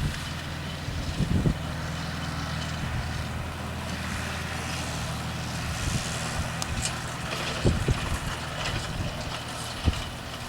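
Engine of harvest machinery running steadily, with a few short low thumps.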